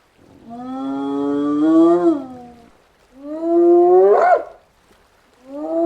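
Hyena whooping: three long, drawn-out calls, each sweeping up in pitch toward its end, the third starting near the end.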